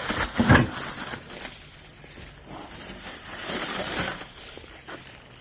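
Plastic shrink wrap crinkling and rustling as it is handled and pulled at, loudest in the first second and again around four seconds in.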